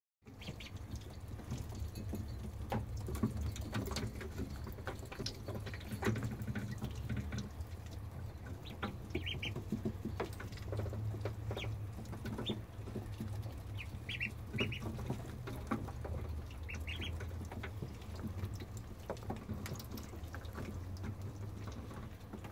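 Ducklings peeping in short, high calls here and there while they peck at chopped dandelion greens, with many small clicks and rustles from their bills, over a steady low hum.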